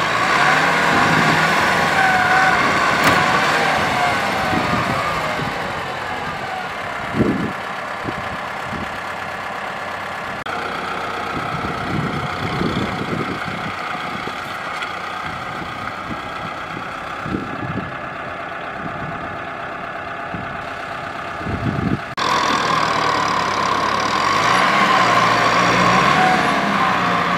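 Four-wheel-drive farm tractor's diesel engine working under load as it pulls a trailer through deep mud, its note rising and falling.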